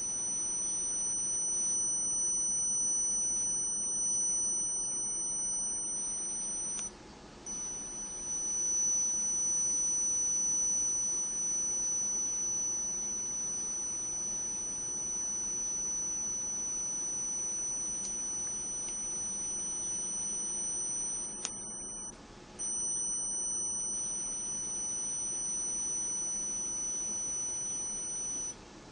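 Piezoelectric stick-slip drive of a 3D-printed nanopositioner whining with a steady high-pitched tone as the stage steps. The tone stops briefly twice, about 7 seconds in and about 22 seconds in, with a faint click just before the second stop.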